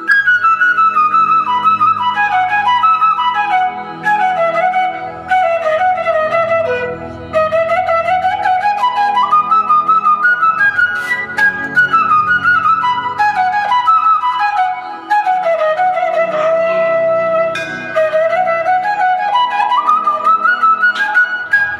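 Instrumental background music led by a flute, playing a melody in long runs that fall and then climb again, over a soft low backing.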